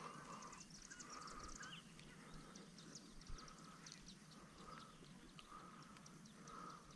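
Near silence: faint outdoor ambience, with a soft sound repeating about once a second and scattered faint high chirps.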